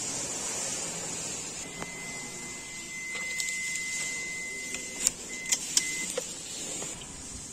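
A steady high electronic beep, held for about three seconds and then heard once more briefly, over a steady hiss. Three sharp clicks near the end are the loudest sounds.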